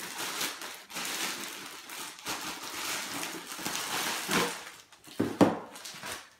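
Clear plastic wrapping crinkling and rustling as a cardboard box is pulled out of it, with a few knocks near the end.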